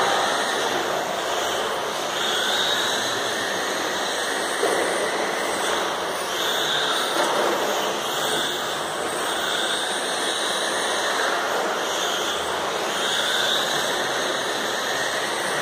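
Electric radio-controlled racing cars lapping a carpet track: a high motor whine that keeps rising and falling as the cars accelerate down the straights and slow for the corners.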